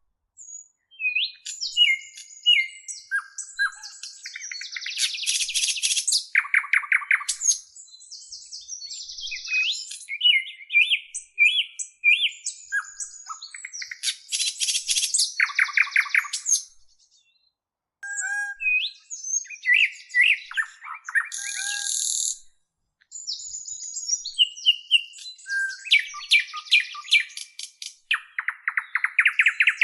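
Songbirds chirping and singing: short whistled and gliding notes mixed with rapid trills, dropping out briefly twice in the second half.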